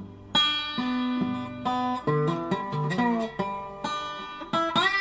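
Instrumental break of a country-rap song: acoustic guitar playing a run of single plucked notes and a few chords.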